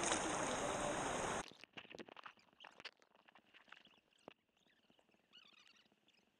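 Splashing, rushing river water at the surface. About a second and a half in, it cuts to muffled underwater sound: faint clicks and crackling over the stony riverbed of a shallow stream.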